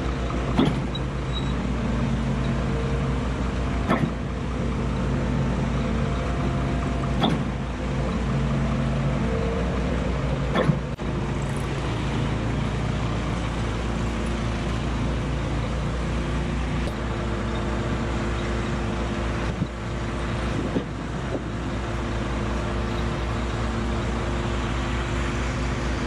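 Heavy diesel engines of a truck-mounted concrete boom pump and transit mixer running steadily while concrete is pumped. Sharp clanks come about every three and a half seconds through the first half, with a few more later.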